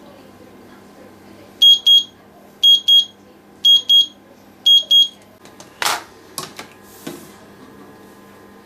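Salter digital kitchen timer sounding its alarm as the countdown reaches zero, marking the end of the eggs' six minutes: four high double beeps, about one pair a second. A sharp knock and a few lighter clicks follow.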